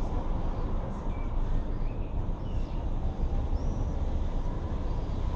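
Steady low rumble of outdoor city background noise, with a few faint, short high chirps scattered through it.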